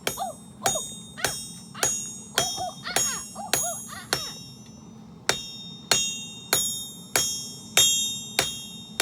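Forging hammer striking steel on an anvil in a steady rhythm, a little under two blows a second, each blow with a bright metallic ring. The hammering pauses for about a second around the middle, then resumes.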